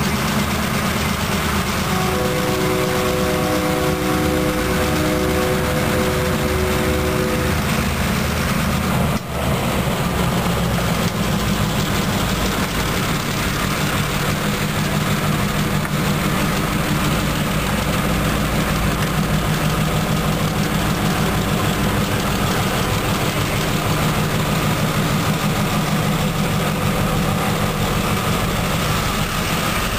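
EMD MP15AC switcher locomotives' 12-cylinder diesel engines running as the units pass slowly at close range, a loud, steady heavy engine throb. About two seconds in, a chord of held tones sounds for about five seconds over the engines.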